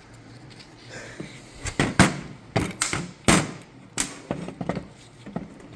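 A string of about a dozen sharp knocks and clicks, irregularly spaced and starting a couple of seconds in: parts and hand tools striking a 6L80 transmission pump while a stuck boost valve is worked out of its bore.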